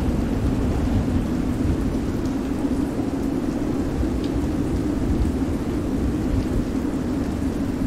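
Steady heavy rain over a continuous deep rumble of stormy wind and sea: a layered thunderstorm ambience with no single clap standing out.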